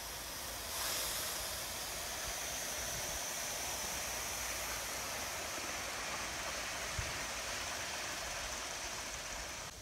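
Aster live-steam French compound locomotive and its passenger coaches running past on the track, a steady hiss and rush that swells about a second in.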